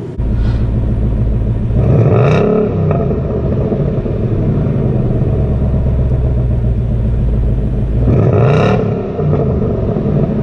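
Stock V8 sports-car exhaust idling with a steady burble, blipped twice; each rev rises quickly and falls back to idle, about six seconds apart.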